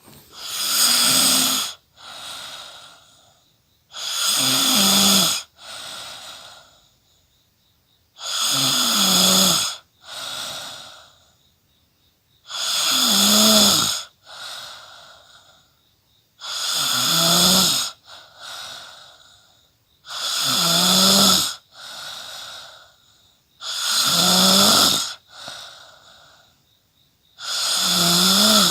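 A person snoring in their sleep: eight loud snores, about one every four seconds, each followed by a quieter, shorter breath.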